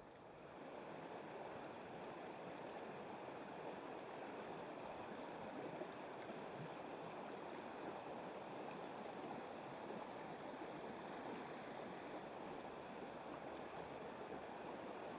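River water running over stones: a steady, faint, even rush that comes up about half a second in.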